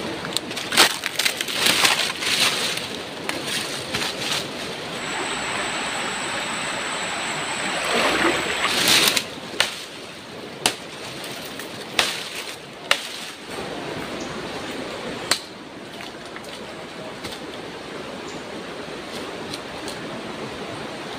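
Dry cut branches and twigs crackling, rustling and snapping as brush is dragged and cleared, with a handful of sharp single cracks spread through the middle. Underneath, a steady rush of flowing river water.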